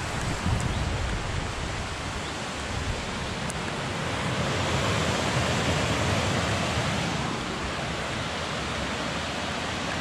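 Waterfall's steady rush of falling water, swelling a little for a few seconds in the middle.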